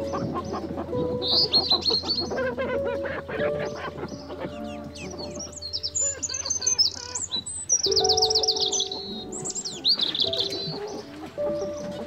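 Domestic hens clucking and giving drawn-out low calls, while small wild birds chirp and trill at a higher pitch, busiest through the middle of the stretch.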